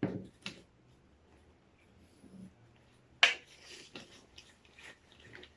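Handling noises as the stove and its packaging are unpacked: a thud, a click, then a sharp loud click about three seconds in followed by brief rustling and a few light ticks.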